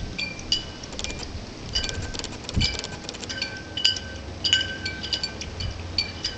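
Small bells tinkling: irregular clusters of light metallic strikes, each ringing briefly at the same few pitches.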